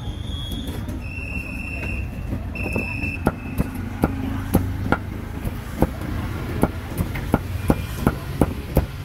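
A cleaver chopping roast pork, sharp regular strokes at about two to three a second starting about three seconds in, over a steady low traffic rumble. Earlier, a few short high-pitched beeps.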